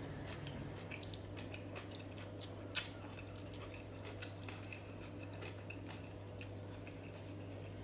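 Metal fork tines clicking and scraping against a glass salad dish, with faint chewing; a sharper clink about three seconds in and another about six seconds in.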